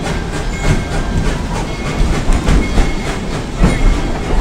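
Narrow-gauge Tweetsie Railroad passenger train heard from aboard, its wheels clicking over the rail joints roughly twice a second over a steady low rumble as it rolls along.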